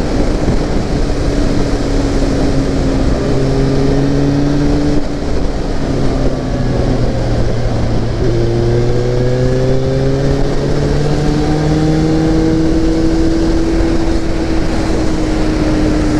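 Motorcycle engine running under way at road speed, mixed with heavy wind rush on the microphone. The engine note holds steady, shifts about five seconds in, then climbs slowly as the bike picks up speed before easing off near the end.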